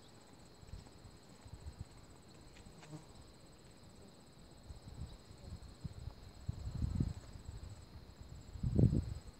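Insects trilling steadily in a high, finely pulsing buzz, with a few low rumbles, the loudest about seven seconds in and near the end.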